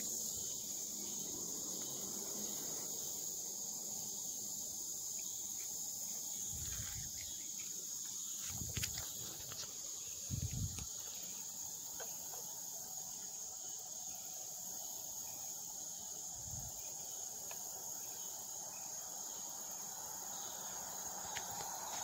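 Insects buzzing in a steady high-pitched chorus, with a few soft low thumps in between.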